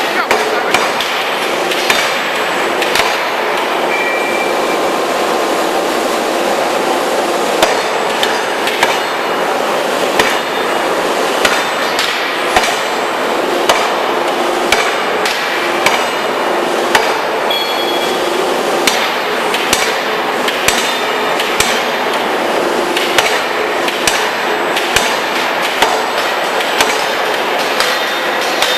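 C66 1203T forging hammer striking repeatedly, about one blow a second, over a steady loud noise of running machinery.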